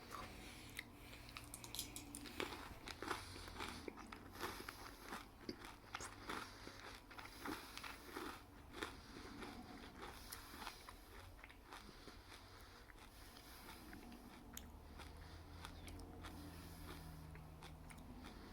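Faint mouth crunching and chewing of several Crunchy Cookie M&M's at once: the thick chocolate shells crack in many small, crisp crunches that thin out over the last few seconds.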